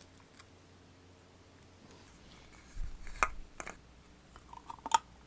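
Plastic wrapping crinkling in short bursts from about three seconds in, with light clicks and taps near the end.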